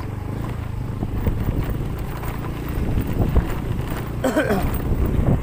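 Vehicle engine running steadily while travelling over a rough, bumpy road, with knocks and rattles from the bumps about three seconds in. A short voice sound comes in about four seconds in.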